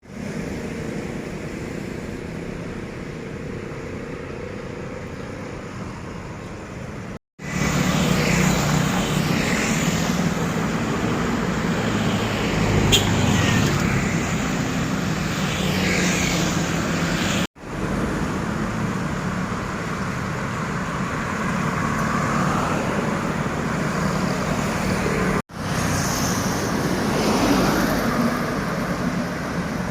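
Road traffic noise with passing vehicle engines, in several shots cut together, with brief drops to silence at each cut about 7, 17 and 25 seconds in.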